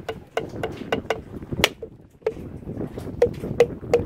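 A small hammer tapping a whole brown coconut held in the hand to crack its shell. About a dozen sharp knocks come at an uneven pace of two to three a second, each with a short ring; one a little over a second and a half in is the loudest.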